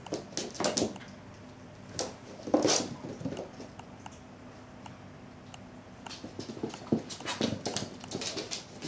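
Cats' paws and claws scrabbling and thumping on a wooden floor as they chase a laser dot. The sound comes in short bursts of knocks and scrapes: the loudest is about two and a half seconds in, and a busier run comes near the end.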